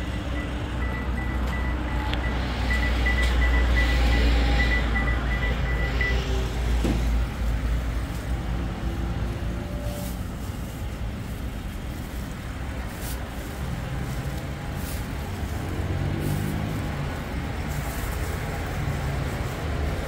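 Road traffic: a heavy vehicle rumbles past over the first six seconds or so, with quick beeps alongside it, then lighter traffic hum continues. Short clicks and rustles of onions and a plastic bag being handled come through in the second half.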